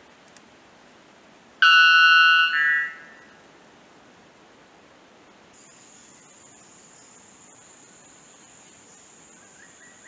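White bellbird giving one loud, ringing call about one and a half seconds in, lasting about a second and a half, its second part lower in pitch. A thin, steady high-pitched whine starts about halfway through and continues over a faint background hiss.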